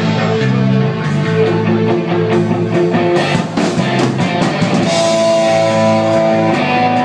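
Live post-punk rock band playing: electric guitar, bass guitar, drum kit and keyboards, with long held notes coming in about five seconds in.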